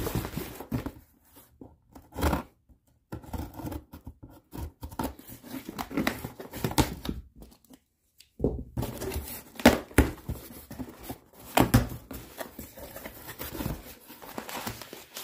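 Scissors scraping and cutting through packing tape on a cardboard box, with tape tearing and cardboard flaps being pulled open, in irregular bursts broken by a few short silences.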